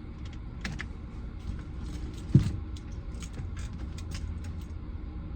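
Keys jangling and scattered clicks inside a car, over a low rumble, with one heavy thump about two seconds in.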